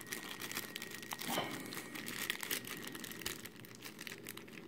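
Clear plastic wrapping crinkling in the hands as it is worked off a PVC figure: a steady run of small crackles.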